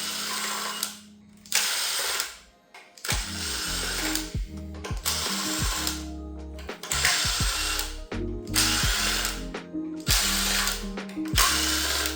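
A ratcheting tool clicks in repeated bursts of about a second each as fasteners are worked loose on the water pump, over background music.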